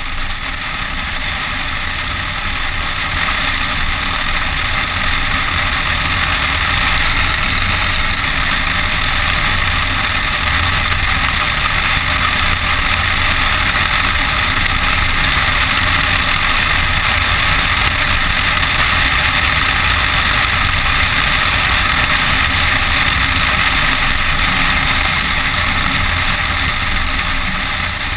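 Steady wind rush and road noise of an SUV driving on a snow-covered road, heard through a camera mounted on the outside of the car, with heavy low wind buffeting on the microphone.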